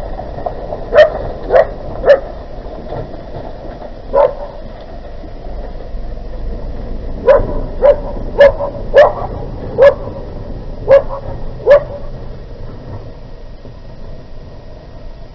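A dog barking in short bouts, about eleven sharp barks in all: three in quick succession about a second in, one more near four seconds, then a run of seven.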